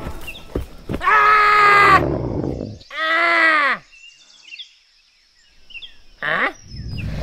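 A man tumbles onto a dirt forest path with a couple of knocks and cries out twice, one held yell and then a rising-and-falling groan. Birds chirp faintly in the quiet that follows, a short sharp rising cry comes about six seconds in, and a low rumble starts near the end.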